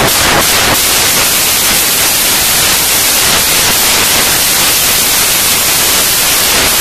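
Loud, steady static hiss spread evenly from low to high pitches, with a few faint beats in the first second.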